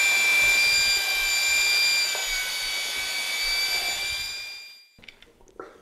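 Large electric mixing drill spinning a full-size paddle through thick drywall joint compound in a five-gallon bucket: a steady high motor whine, sagging slightly in pitch a couple of seconds in as the mud loads it, that fades out about five seconds in when the drill is stopped.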